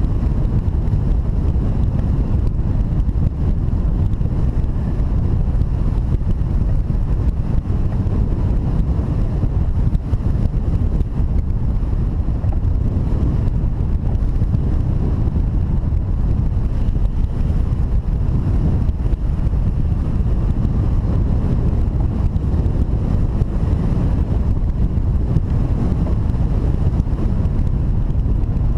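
Steady wind rushing over the microphone, a loud low rumble that never lets up.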